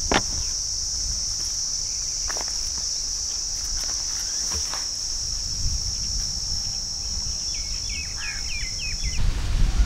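A steady high insect drone over a low wind rumble, with a few brief rustles from leafy plants being handled. Near the end a bird gives a quick run of about six short chirps, and then the drone cuts off suddenly.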